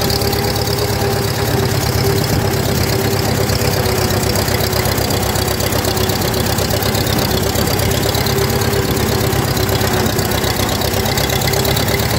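Massey-Harris 44 tractor engine running steadily at low throttle as the tractor is driven slowly.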